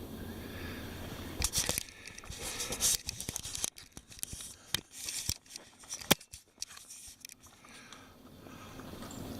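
Close rustling, scraping and crackling with scattered sharp clicks, the sound of the camera being handled and rubbed against the microphone. It runs from about a second and a half in until about seven and a half seconds, with a faint steady background on either side.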